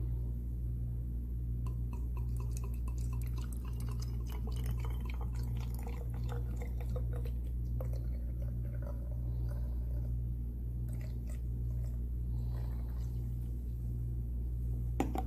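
Sodium hydroxide solution pouring from a glass volumetric flask into a plastic bottle, with faint trickling and small glugging ticks, over a steady low hum in the room. A few sharp clicks near the end.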